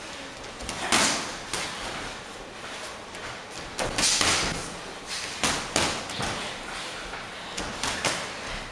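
Boxing gloves landing punches in sparring: sharp thuds and slaps, about nine in all, some in quick pairs and runs of three.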